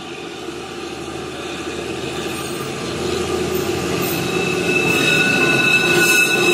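Narrow-gauge ZDM-3 diesel locomotive hauling its coaches round a curve, approaching and passing close, its engine growing steadily louder. From about halfway in, a steady high wheel squeal comes from the wheels grinding on the curved track.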